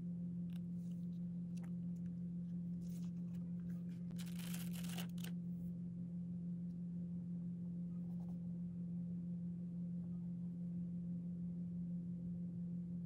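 Paper rustle as a biscuit-shaped sticky-note pad is opened and its pages are riffled, about four seconds in, with a few light handling clicks. All of it sits over a steady low hum.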